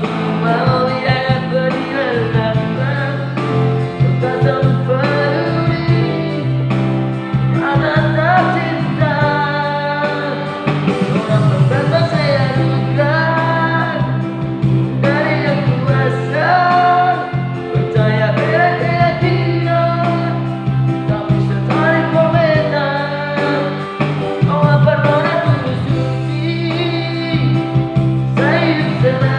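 A man singing a pop ballad in a high voice, phrase after phrase, over a steady instrumental backing.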